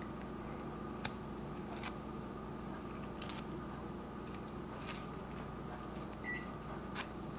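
Quiet kitchen room tone: a faint steady hum with a few soft, scattered clicks and taps of small objects being handled.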